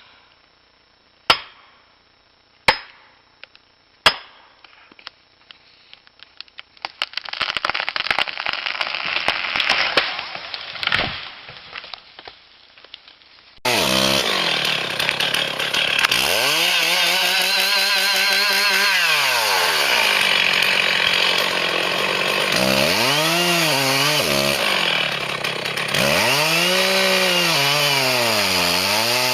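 Four sharp knocks about a second and a half apart, then, after a cut, a chainsaw running loud, its engine revving up and dropping back three times.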